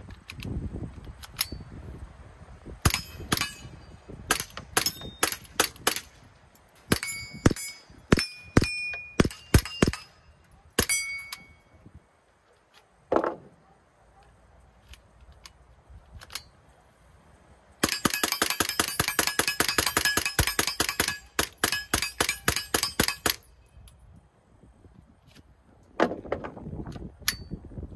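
Suppressed Ruger 10/22 with a 4.5-inch barrel and a Rugged Oculus rimfire suppressor firing .22 LR, each shot a sharp crack. Single shots come about a second apart, then a fast string of shots follows, and some hits leave a short metallic ding.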